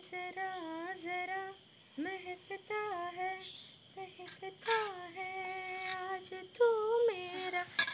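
A girl singing a song on her own, in long held notes that slide and bend between pitches, broken by short breaths.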